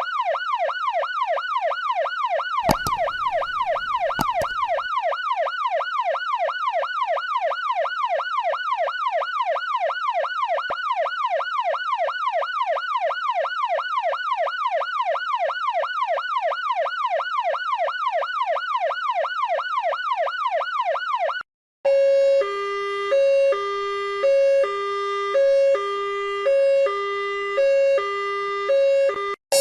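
Electronic emergency-vehicle siren in a fast yelp, its pitch sweeping up and down about three times a second, with a few sharp clicks about three seconds in. It cuts out about 21 seconds in and gives way to a two-tone hi-lo siren alternating between a higher and a lower note about once a second.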